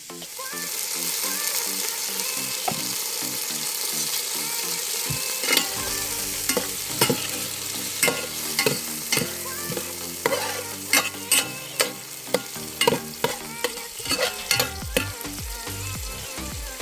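Chopped raw papaya and carrot frying in coconut oil in a pan: a steady sizzle, with many sharp pops and clicks from about five seconds in.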